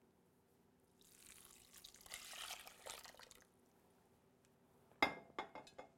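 Water poured from a glass pitcher into a stainless steel saucepan of shredded coconut, splashing for about two and a half seconds. A few sharp clicks follow near the end.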